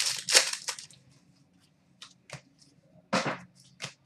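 Trading cards and foil pack wrappers being handled: a few sharp snaps and rustles, loudest at the start, again just after, and about three seconds in, with faint ticks between.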